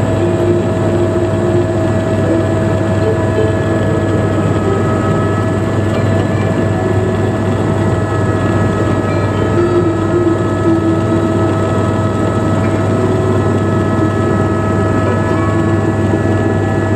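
Helicopter in flight heard from inside the passenger cabin: a steady drone of engine and rotor, with a low hum and a few steady whining tones over it.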